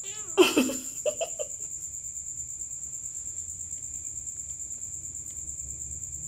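Kittens play-fighting: a short loud cry with a falling pitch about half a second in, then a few brief squeaks. Crickets chirr steadily behind them throughout.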